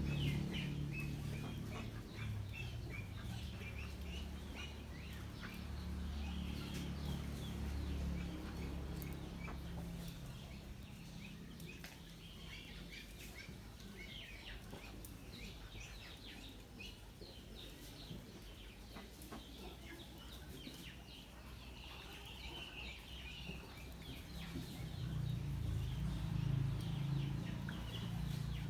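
A flock of poultry calling, with many short, high chirps and clucks coming steadily. A low rumble underneath fades out after about ten seconds and swells again near the end.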